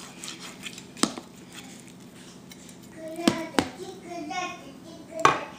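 A kitchen knife cutting through a baked, cheese-topped pasticho (Venezuelan lasagna), its blade knocking against the baking pan in four sharp clicks. A faint voice can be heard in the background about midway.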